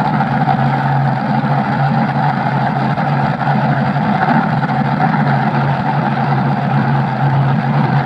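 Vehicle engine sound effect, dubbed over the toy crane truck, running as a steady engine drone with a constant low hum.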